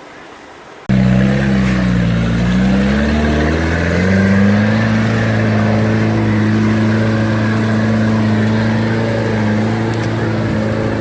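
Off-road 4x4's engine working under load, cutting in suddenly about a second in; the revs dip and climb again, then hold steady.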